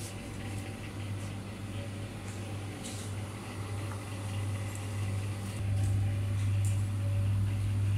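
Steady low electrical hum of shop freezers' refrigeration compressors, growing louder a little past halfway as the freezers come close, with faint handling noise.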